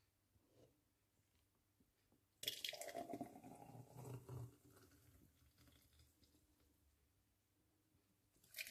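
Thick green smoothie pouring from a blender jar into a plastic blender cup, starting about two and a half seconds in and lasting about two seconds; a second pour begins near the end.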